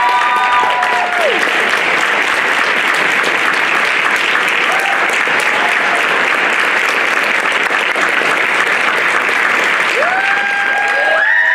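Audience applauding steadily through a curtain call, with high whoops and cheers near the start and building again near the end.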